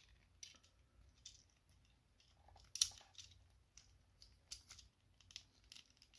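Plastic parts of an Iron Factory Steel Lucifer transforming figure clicking and ticking as its joints are rotated and tabbed into place: scattered faint clicks, the loudest about three seconds in.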